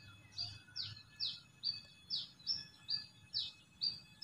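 A small bird calling over and over: short, high chirps that each slide downward in pitch, about two a second.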